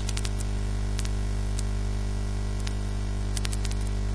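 Steady mains hum and static on the microphone, with scattered faint clicks of a computer mouse: a quick run of clicks at the start, single ones after about one and two seconds, and another cluster near the end.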